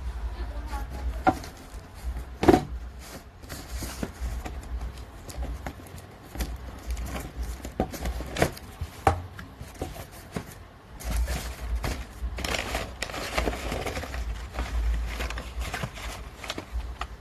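Handling sounds: scattered knocks and clicks, the loudest about two and a half seconds in, with stretches of rustling and a low rumble of handling on the microphone.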